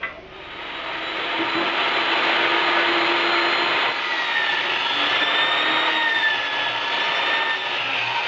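Electric power tool switched on with a click, its motor spinning up over about a second and then running steadily with a high whine.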